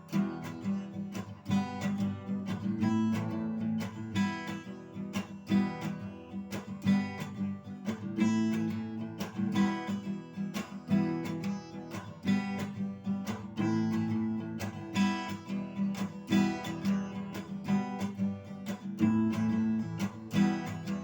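Acoustic guitar strummed in a steady rhythm, playing an instrumental break between sung verses.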